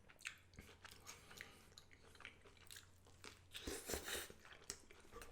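Close-miked chewing of a mouthful of Burger King Impossible Whopper: faint soft, wet clicks and smacks of the mouth, a little louder about four seconds in.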